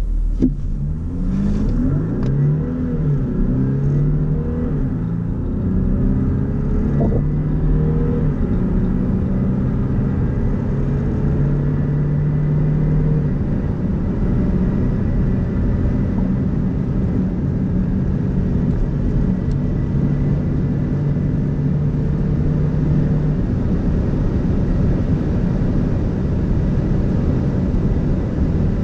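Audi A6 C7 3.0 TDI V6 diesel, heard from inside the cabin, under full-throttle acceleration from a standstill. The engine note climbs and drops back several times in the first few seconds as the seven-speed S-tronic dual-clutch gearbox shifts up quickly, then rises slowly in the tall upper gears. Near the end the engine note sinks under steady road and wind noise at around 200 km/h.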